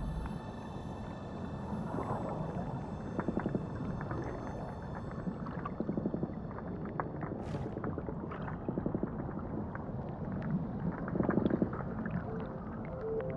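Underwater ambience: a steady low, rumbling water noise scattered with small clicks and crackles. Faint high steady tones fade out in the first few seconds, and a short hiss comes about halfway through.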